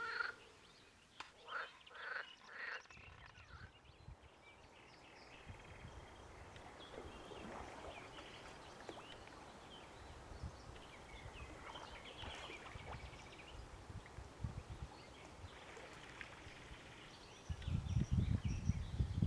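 Outdoor lakeside ambience with scattered short animal calls, such as frogs and birds. About two seconds before the end a loud low rumble sets in, the loudest sound.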